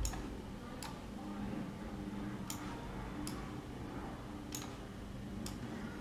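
Computer mouse clicking: six sharp single clicks at irregular intervals, about a second apart, over a faint low hum.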